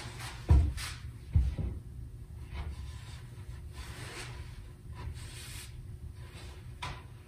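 Plywood panels knocking twice against a wooden workbench, then light scraping and rubbing as a panel is stood upright and set against the glued edge of another.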